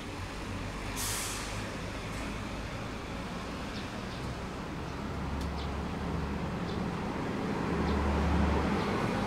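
Road traffic rumble with a short sharp hiss about a second in, like an air brake; the rumble grows louder near the end as a vehicle passes.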